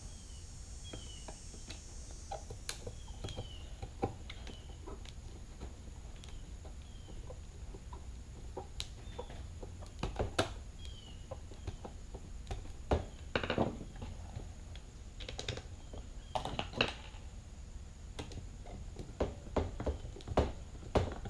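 Scattered clicks and taps of a screwdriver and the plastic housing of an electric string trimmer being handled as its screws are put back in, with a few louder clatters about two-thirds of the way through. Birds chirp in the background.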